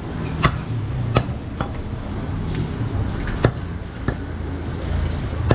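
A large butcher's knife chopping goat meat on a round wooden chopping block: about half a dozen sharp knocks at irregular intervals, with a low steady hum underneath.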